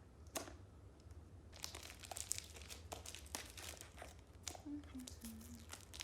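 A mystery-minis blind box being cut and torn open by hand: a single click, then from about a second and a half in a dense run of packaging crinkling and tearing.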